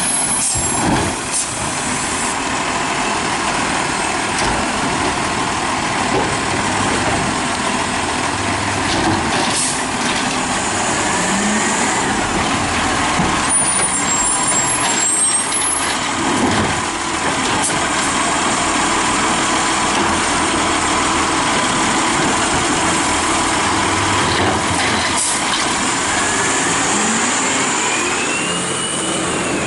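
A 2010 DaDee Scorpion automated side-loader garbage truck at work, its diesel engine running steadily with rising whines as it revs to drive the hydraulic arm. Short air-brake hisses and sharp knocks come several times as carts are handled.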